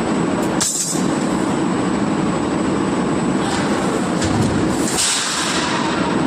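Steady, loud din of forging-shop machinery running, with a brief hiss just under a second in and another near five seconds.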